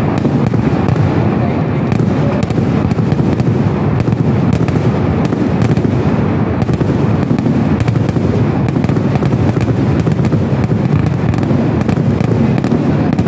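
Fireworks barrage: a dense, unbroken run of overlapping bangs and crackling, loud and continuous without any pause.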